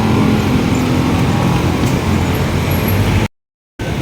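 Steady street traffic noise, a low rumble of passing cars and buses. A little past three seconds in the sound drops out completely for about half a second, then returns.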